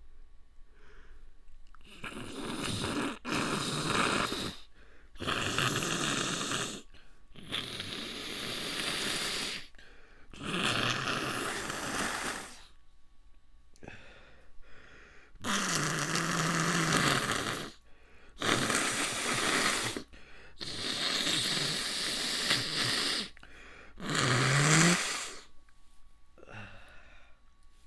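A person breathing heavily and raggedly as a sneeze builds: about nine long, noisy breaths in and out, each a second or two, with a short voiced catch in the throat twice.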